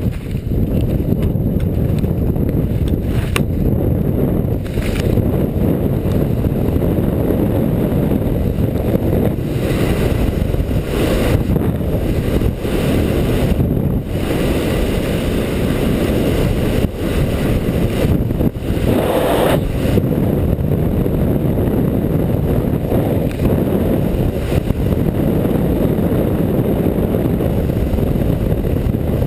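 Wind buffeting the microphone of a skier's camera on a fast downhill run, a steady deep rushing, with the skis running over packed snow underneath.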